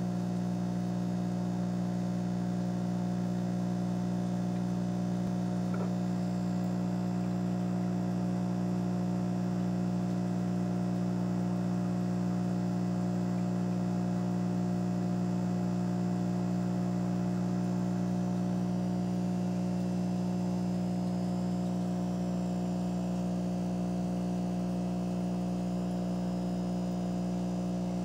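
Steady low electrical hum of aquarium equipment, several pitches held constant with no change.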